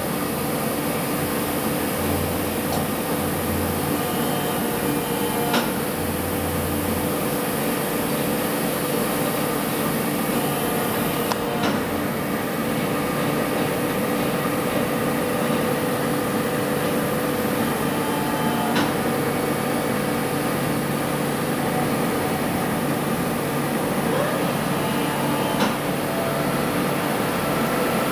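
Scharmann CNC horizontal floor boring mill running: a steady mechanical hum of its drives and hydraulics with several held tones, and a low hum that cuts in and out a few times in the first seconds. A few sharp clicks come several seconds apart as the square ram moves to pick up an angle milling head.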